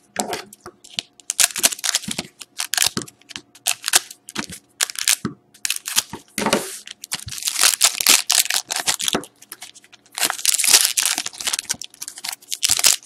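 A shiny trading-card pack wrapper crinkling and crackling as it is handled and cut open with scissors. The cards and wrapper are then set down on a table. The crinkling comes in quick bursts and is thickest in two long spells in the second half.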